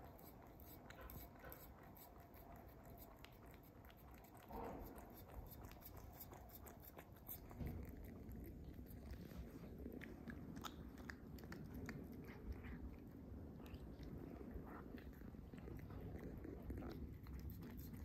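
Cat eating tuna off a plate, close up: faint, quick wet clicks of chewing and licking, getting busier about halfway through.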